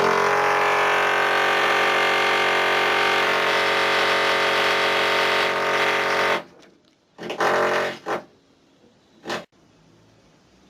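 Electric drill running at a steady pitch for about six seconds, then cutting off. It is followed by three short bursts as the trigger is squeezed and released.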